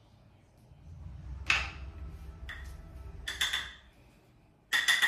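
Sharp clicks and clacks of hard makeup cases and compacts being handled and opened, in several separate bursts, the last and loudest near the end, over a low rumble through the middle.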